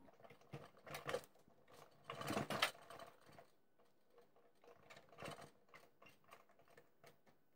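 Faint handling noises: light clicks and rubbing as hands work flexible fuel lines onto the carburetor ports of a small engine, with a slightly louder cluster of clicks about two seconds in.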